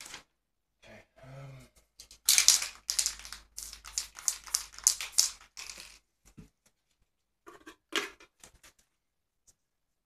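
Paper crinkling and rustling as a crumpled sheet is worked in the hands and pressed onto a spray-painted sheet: a dense run of sharp crackles for about four seconds, then a few lighter rustles and taps.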